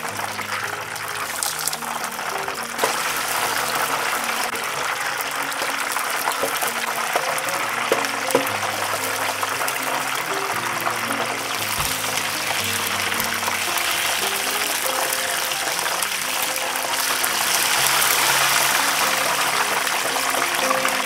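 Hot frying oil sizzling and splashing as it is ladled over a whole Cornish hen held on a wire strainer above the pan. Background music with held low notes plays throughout.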